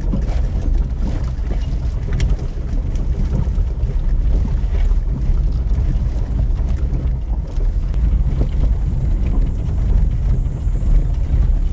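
Tata Tiago hatchback driving over a rough, unpaved dirt road, heard inside the cabin: a steady low rumble of engine and tyres, with a few light knocks from bumps and stones.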